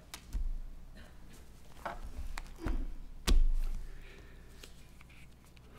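Hands knocking and shifting things on a wooden pulpit close to its microphone: a few dull thumps, the loudest a little over three seconds in.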